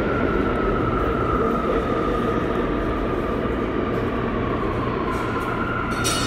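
New York City subway train running in the tunnel: a steady low rumble with a high whine that slowly sinks in pitch, heard through a tiled passageway. A short, sharp high sound comes near the end.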